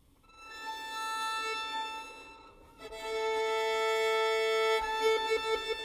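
Slow improvised instrumental music in A minor begins with long held notes. The first swells in and fades, a second is held for about two seconds, and a few shorter notes follow near the end.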